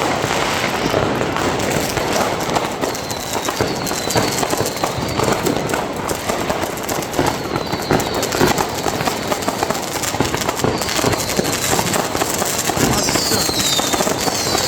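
New Year's Eve fireworks and firecrackers going off on all sides in a dense, continuous barrage of crackling bangs. Short high whistles falling in pitch cut through it several times, more often near the end.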